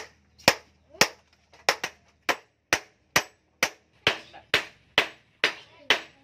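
Hand hammer blows on a steel knife blade over an anvil, forging the blade. The strikes are sharp and evenly spaced at about two a second, each with a short ring.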